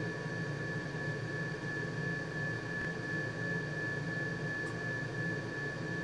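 Steady machine background noise: a low hum and hiss with a constant thin high-pitched whine, unchanging throughout.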